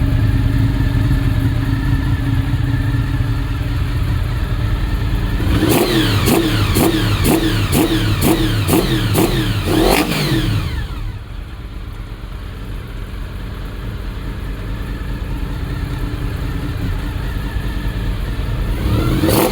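1991 Honda VFR750F (RC36) V4 engine with its induction noise: idling steadily, then revved in a quick series of short throttle blips for about five seconds, then dropping to a quieter, lower idle that slowly recovers. The engine has just been overhauled and, by the owner's account, is running too rich.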